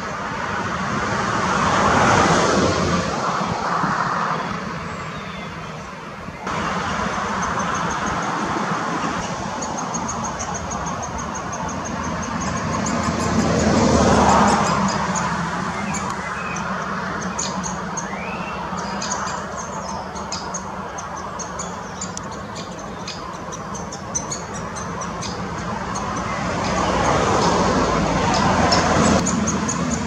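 Road traffic passing, its hiss swelling and fading three times, with rapid, high-pitched chattering from great spotted woodpecker nestlings begging at the nest hole.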